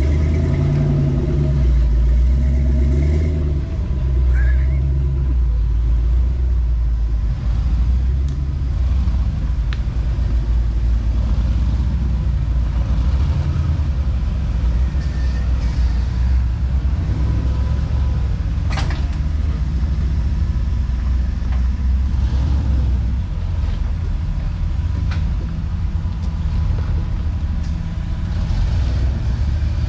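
Off-road rock crawler's engine running under load as it climbs an obstacle, a steady low rumble. A single sharp knock about 19 seconds in.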